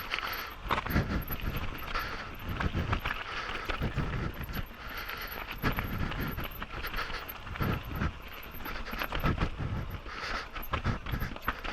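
Canyon Sender downhill mountain bike rattling and thudding over rough rocky trail, with irregular knocks from the suspension and frame. Heavy breathing sits close on the microphone, rising in hissy puffs every couple of seconds.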